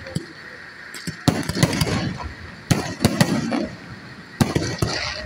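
Aerial fireworks going off in rapid volleys of sharp bangs, with three clusters of blasts about a second and a half apart after a quieter first second.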